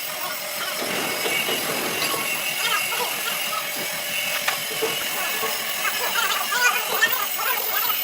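Steady hissing workshop noise with indistinct voices in the background.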